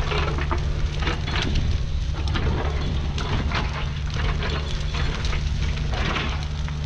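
Mini excavator's engine running steadily under dense, irregular crackling and snapping from a burning brush pile.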